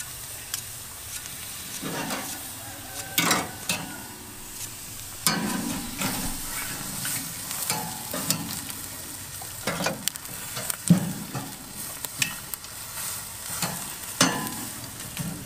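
Slices of roast beef sizzling on a charcoal grill's metal grate. Steel tongs and a knife blade scrape and clink against the bars at irregular moments as the meat is moved and turned.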